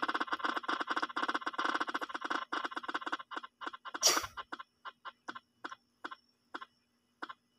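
Ticking from a spinning name-picker wheel app played through a phone speaker. The clicks come fast and then space out more and more as the wheel slows to a stop, with one brief louder noise about four seconds in.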